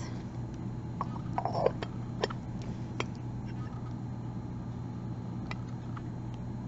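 Porcelain trinket box and lid being handled: a few scattered light clicks as glazed porcelain touches porcelain, over a steady low hum. About a second and a half in comes a brief voice-like sound, the loudest moment.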